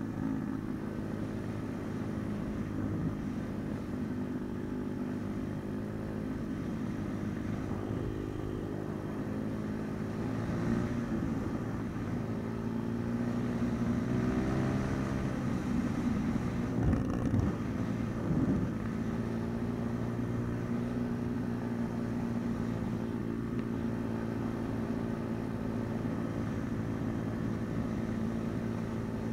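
Pit bike engine running while riding along, at fairly steady revs, with the pitch rising and falling between about ten and eighteen seconds in as the throttle changes.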